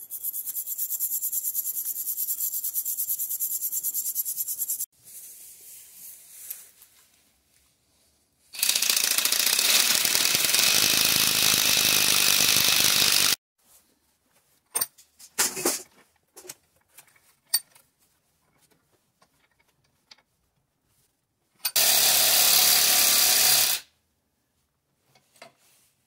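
A handheld power tool runs in bursts on a cast copper belt buckle clamped in a vise, cutting off the sprue and polishing it up. There is a thinner, higher run for the first five seconds, then two louder runs of about five and two seconds, with light metal clicks and taps between them.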